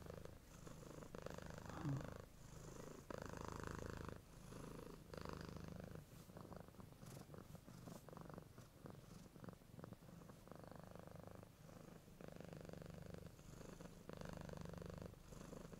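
Soft, steady purring in stretches about a second long with short breaks between them.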